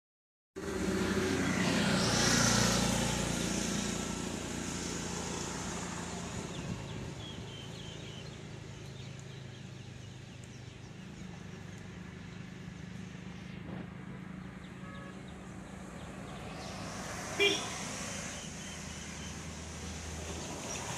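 Outdoor background noise with a motor vehicle's engine running, swelling louder about two to three seconds in and then settling to a steady hum. A brief, sharp, loud sound stands out about seventeen seconds in.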